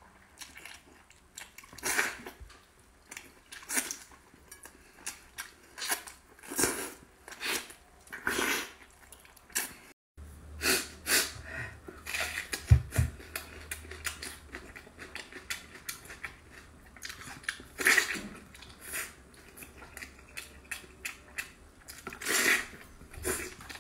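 Close-miked eating sounds: a person sucking and gnawing meat off braised pork bones and chewing, in irregular wet bursts. The sound cuts out briefly about ten seconds in.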